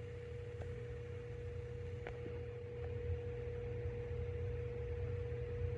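A steady high-pitched hum on one unchanging tone over a low rumble that grows slightly louder about halfway through, with a couple of faint clicks.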